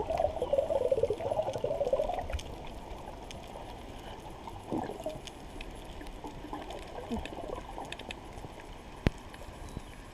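Underwater water noise around the camera: a bubbly gurgling for the first couple of seconds, then a quieter wash with a few more gurgles and scattered sharp clicks, one loud click near the end.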